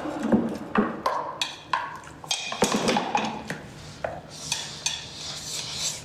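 Tableware clinking and knocking: chopsticks tapping bowls and dishes set down, in a scatter of short clicks and clinks.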